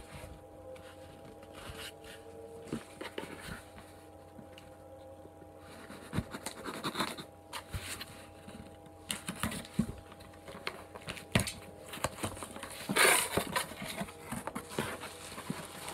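Hands handling and opening a cardboard shipping box: scattered taps, knocks and scrapes on the cardboard, with a louder stretch of cardboard rustling and scraping about 13 seconds in as the flaps are pulled open. A faint steady hum runs underneath.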